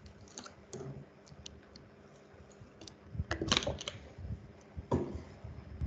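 Computer keyboard keys and clicks tapped irregularly, a few of them louder about three and a half and five seconds in.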